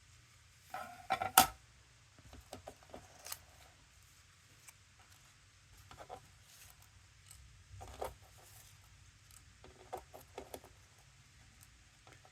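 Handling of die-cutting plates, a metal cutting die and freshly cut paper: a sharp click about a second and a half in, then scattered lighter clicks and paper rustles as the layers are taken apart.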